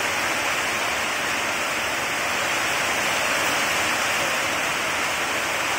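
Heavy rain falling steadily as an even, unbroken hiss.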